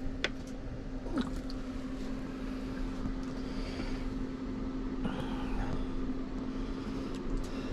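A steady low hum with a noisy background, broken by a few faint clicks and knocks.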